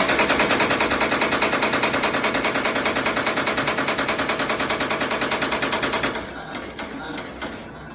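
Glove knitting machine running with a fast, even mechanical clatter of about eight beats a second, which falls away to a quieter, irregular sound about six seconds in.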